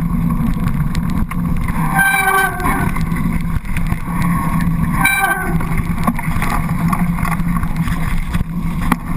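Wind buffeting the camera microphone and bike tyres rumbling over a dirt trail at speed, a steady noisy rush. Two brief pitched sounds cut through it, about two and five seconds in.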